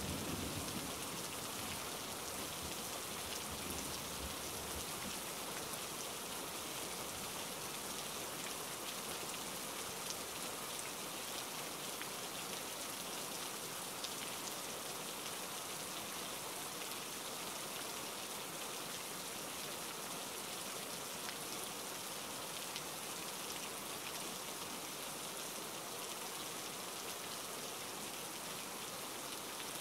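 Steady rain falling on a puddle, an even hiss of drops on water. A low rumble of thunder fades out over the first few seconds.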